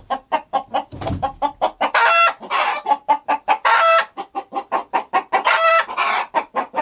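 Chickens clucking in a fast, steady run of short clucks, with a few longer, louder squawking calls breaking in about every two seconds.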